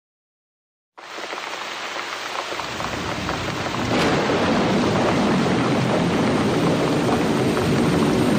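Steady rain falling, starting suddenly about a second in and growing heavier, with a brief crack about four seconds in.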